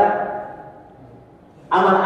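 A man's preaching voice trails off and fades out over about a second, a short pause, then he starts speaking again near the end.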